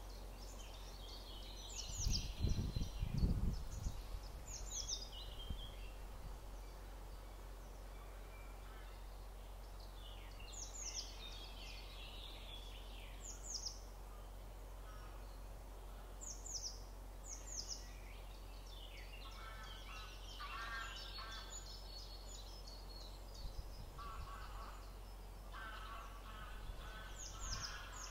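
Outdoor ambience of several wild birds singing and calling: short, thin, high notes falling in pitch, repeated in twos and threes every second or two, among other chirping song over a steady background hiss. A low rumbling burst, the loudest moment, comes about two to three seconds in.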